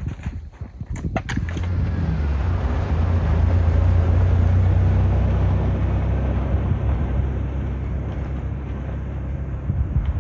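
A motor vehicle passing by: a low, steady engine hum that swells over a few seconds and then slowly fades.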